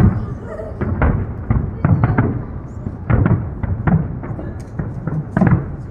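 Fireworks bursting in an irregular, continuous run of booms, about two or three a second.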